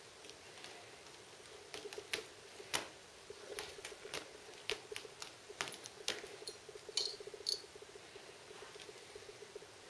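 A kitten's claws scratching and catching on a cat-tree post as it climbs, in irregular sharp scratches and clicks, loudest about three and seven seconds in, over a faint steady hum.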